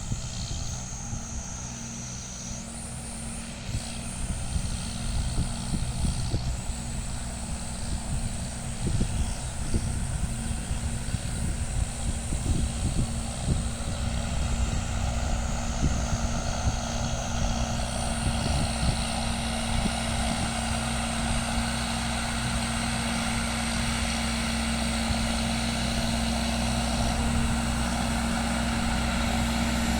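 John Deere tractor's diesel engine running steadily under load, growing slightly louder toward the end, with a high whine that steps up in pitch a few times and some knocking in the first half.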